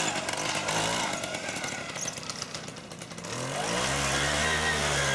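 Car engine running; about three seconds in its note rises and grows louder, then holds steady.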